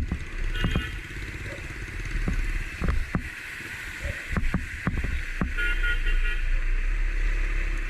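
Motor vehicle traffic running through a flooded street, a steady engine rumble and hiss broken by a series of sharp knocks.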